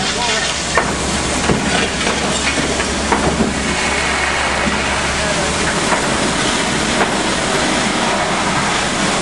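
Steady rushing hiss of fire-hose water streams over the running engine of fire apparatus, with scattered sharp cracks in the first few seconds. The low engine hum drops away about five and a half seconds in.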